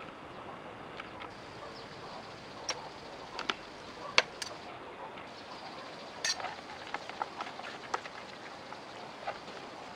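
Irregular soft knocks, slaps and clicks of a raw plucked chicken being handled and rubbed in a plastic basin, the sharpest about four seconds in, over a steady faint background hiss.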